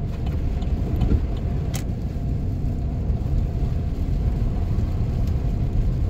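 Steady low rumble of a car's engine and tyres driving on a snow-covered highway, heard from inside the cabin, with one sharp click just under two seconds in.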